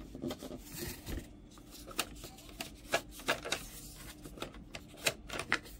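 Foam darts being pushed into a Nerf blaster's plastic dart channel: irregular light plastic clicks and rustling from handling, the sharpest clicks about three seconds in and near the end.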